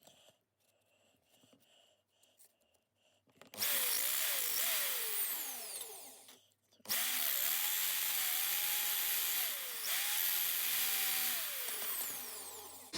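Power tool driving a cheap drill bit sharpener, run twice: a short run, a brief stop, then a longer run. The motor note dips and recovers as a blunt drill bit is pressed in to be ground. Faint clicks of handling come before it starts.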